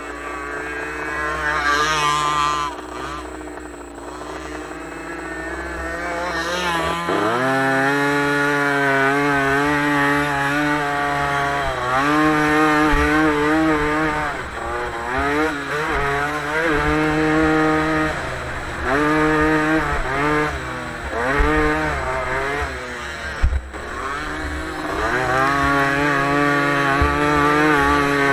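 Off-road vehicle engine revving hard and easing off again and again, its pitch climbing and dropping with each throttle change, with one sharp knock near the end.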